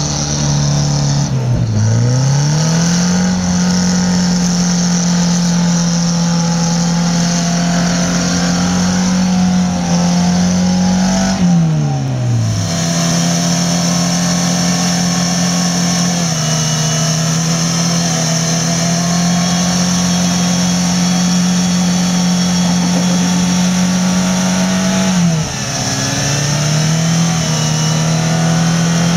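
Off-road 4x4's engine held at high, steady revs for long stretches. The revs drop sharply and climb back three times: about a second and a half in, about twelve seconds in, and about twenty-five seconds in.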